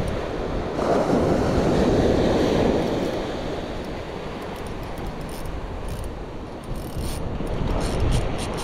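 Surf breaking and washing up a sandy beach, swelling about a second in and easing off a couple of seconds later, with wind buffeting the microphone.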